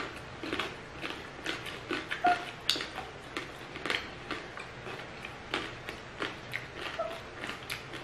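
Close-miked eating sounds of two people eating crispy pata (deep-fried pork leg) with their hands: chewing and mouth clicks, an irregular string of short clicks, two or three a second.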